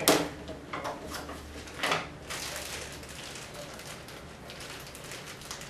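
Handling noise: a sharp click, two short crackles, then a few seconds of rustling, as a small plastic bag holding the TV's leg screws is handled.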